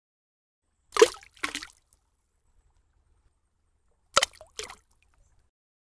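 Cartoon splash sound effects, twice: each a sharp splash followed by a smaller one, about a second in and again about four seconds in, as an animated egg drops into a bucket of paint and springs back out.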